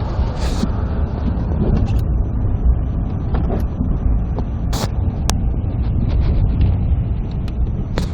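Car driving on a snow-covered road, heard from inside: a steady low rumble of engine and tyres, with a few sharp clicks, the clearest a little under five seconds in and near the end.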